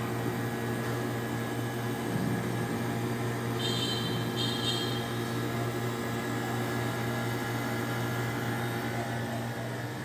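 TCL window-type air conditioner running with a steady hum from its fan motor and compressor, the compressor running again now that its thermostat sensor has been cleaned and adjusted. Two brief high chirps sound about four seconds in.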